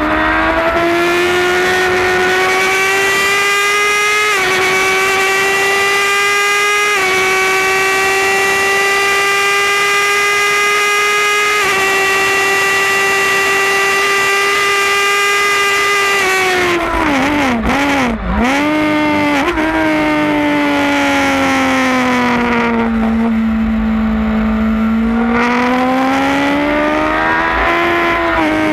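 2008 Suzuki GSX-R1000 inline-four engine at racing revs, with wind rush. It pulls hard through the upper gears, its pitch dropping briefly at each upshift. About two-thirds of the way through it falls through a rapid series of downshifts with throttle blips under braking, runs low through a slow corner, and then winds up again near the end.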